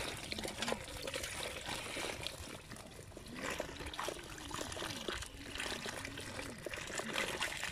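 Water trickling and pouring from a pond outlet into a woven bamboo basket trap, with many small splashes and taps from live fish flipping in the wet basket.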